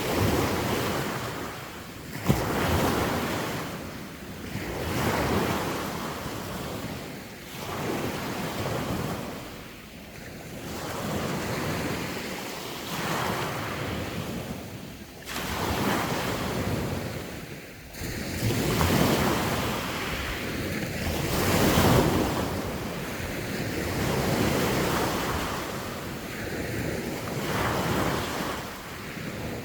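Sea waves washing in, surging and fading in a new swell every few seconds, with wind rumbling on the microphone. A sharp click about two seconds in.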